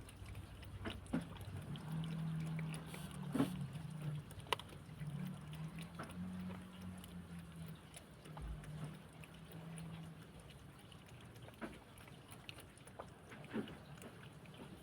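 Cats lapping water and eating, heard as a scatter of small wet clicks and ticks, with a low steady hum through the first two-thirds.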